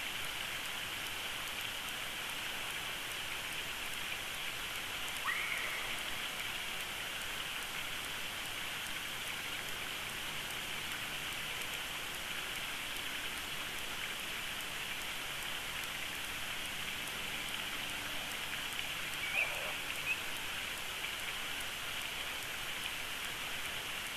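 Steady, even outdoor hiss picked up by the nest camera's microphone, with a brief faint chirp about five seconds in and two more short faint sounds around nineteen and twenty seconds in.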